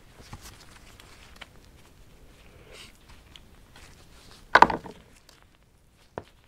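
Squirrel hide being pulled off a hind leg by gloved hands: faint sticky crackling and rubbing, with one louder short rasp about four and a half seconds in and a small click near the end.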